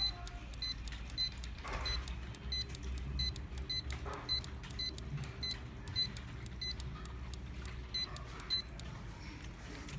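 Handheld 2.4 GHz wireless barcode scanner giving a short, high beep at each good read of a waybill barcode, about every half second, stopping near the end.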